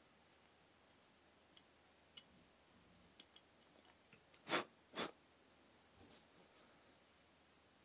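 Faint small clicks and scratching as an oiled cotton swab is worked inside a Glock pistol slide, with two sharper clicks about half a second apart a little past the middle.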